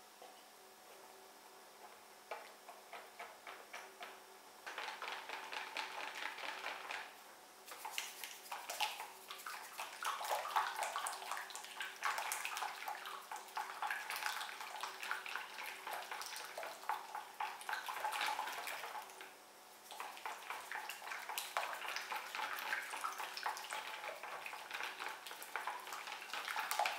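Hand whisk beating thin zlabia batter in a plastic bowl: quick, wet stirring strokes with taps against the bowl. The strokes begin lightly about two seconds in, grow busier, and stop briefly twice.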